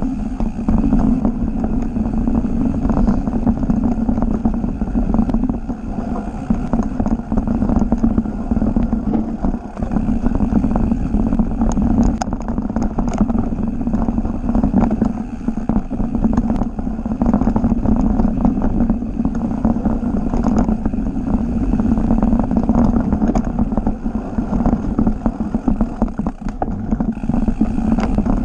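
Mountain bike riding fast down a rooty dirt trail: a steady rushing of wind and tyres on the camera microphone, broken by frequent clattering knocks and rattles as the bike goes over roots and rocks.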